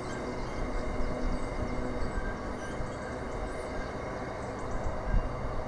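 Freight train of covered hooded wagons rolling away along the track, a steady low rumble of wagon wheels on the rails.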